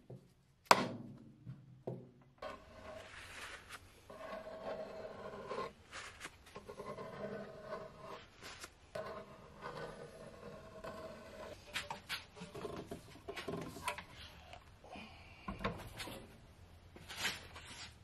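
A small plastic scraper scraping wet glue squeeze-out along the joints of a freshly clamped, edge-glued wooden panel: quiet scraping and rubbing on the wood with scattered light clicks and knocks, the sharpest one about a second in.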